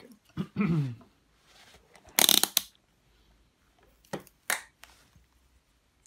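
Close handling noise from multimeter test probes and their leads being picked up and set against the pins of a small relay: a loud rustling scrape about two seconds in, then a click and a shorter scrape about four seconds in.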